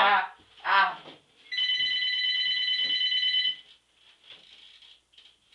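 Telephone ringing: one steady ring lasting about two seconds, starting about a second and a half in.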